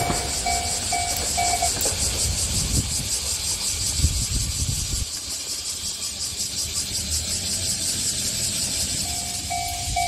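Level-crossing electronic warning bell ringing about twice a second, stopping about two seconds in as the crossing clears behind the departing diesel railcar, whose low rumble fades over the next few seconds. Near the end the bell starts ringing again, signalling another train approaching. A steady high hiss runs underneath.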